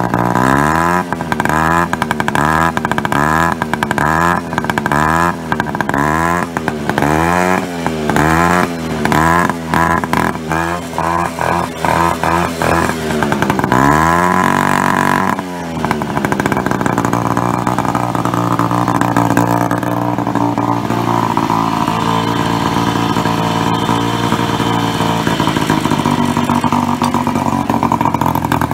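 Babetta 210 moped's small two-stroke single-cylinder engine through an Akrapovič silencer, blipped in a rapid string of short revs about once a second, then one longer rev about halfway through, after which it settles to a steady idle.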